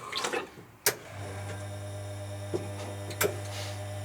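Automatic bean-to-cup espresso machine: a sharp click about a second in, then a steady electric hum starts, with two light clicks later. The hum is the machine's pump starting up to push water through the ground coffee for an espresso shot.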